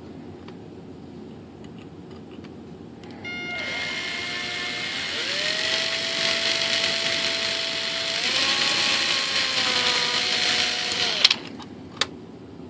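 Small electric drill spinning a micro drill bit to bore a hole, starting about three seconds in and running about eight seconds, its motor whine dropping and rising in pitch a few times. It stops abruptly with a sharp click, and a second click follows.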